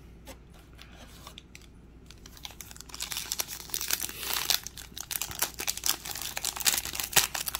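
Foil wrapper of a Panini Prizm NBA trading-card pack being handled and torn open by hand. A few light clicks come first, then dense crinkling and crackling from about two and a half seconds in.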